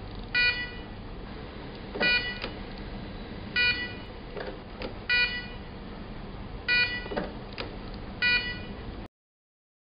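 Bedside patient monitor beeping: six short pitched beeps about every one and a half seconds, the steady pulse of a heart monitor, with a few soft knocks in between. The sound cuts off abruptly near the end.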